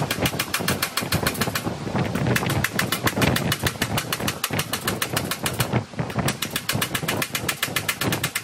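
Rapid metallic strokes on the sheet-steel repair panel, about ten a second, in runs with two short pauses, over a low mechanical rumble.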